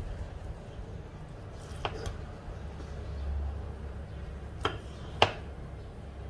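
A kitchen knife slices through fish cake and knocks on a wooden chopping block: four sharp taps, two close together about two seconds in and two more near the end, the last the loudest. A low, steady rumble runs underneath.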